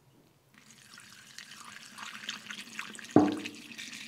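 Premixed two-stroke fuel pouring from a can through a plastic funnel into a chainsaw's fuel tank, a steady splashing trickle that starts about half a second in. One sharp knock about three seconds in.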